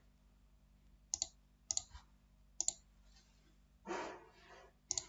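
Computer mouse clicks: four sharp single clicks spread about half a second to a second apart, with a short hiss about four seconds in.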